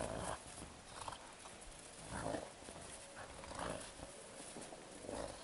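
Two gray wolves play-wrestling: short rough growls and scuffles at irregular intervals, about one a second, the first the loudest.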